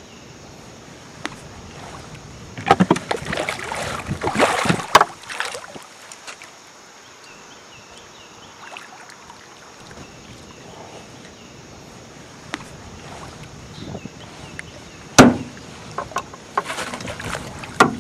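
Water splashing as a hooked flathead catfish thrashes at the surface, in two spells of a few seconds each, with a couple of sharp knocks among the splashes.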